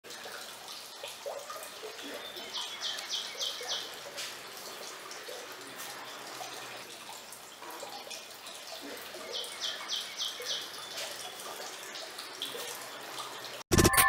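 Water trickling and splashing as it falls from the small pipe spouts of a DIY jar fountain onto the tray below. Twice a bird calls a quick run of five or six high notes. Music starts abruptly at the very end.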